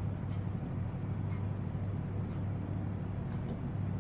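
Steady low background hum with a few faint light clicks.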